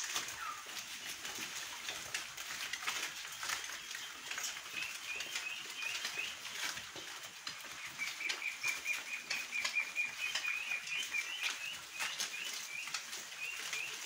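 Piglets feeding on green fodder, a steady mix of chewing and rustling clicks. Over it a bird chirps in quick runs of short rising notes, starting about four seconds in, with a longer trill in the middle.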